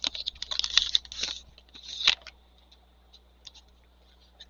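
A trading card pack's foil wrapper being torn open and crinkled, with the cards rustling and clicking. The rustling is busy through the first second and a half, with another burst about two seconds in, then only a few light ticks.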